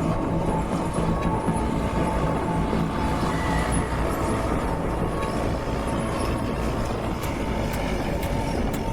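Stump grinder's engine running steadily: a continuous low rumble with a faint steady whine.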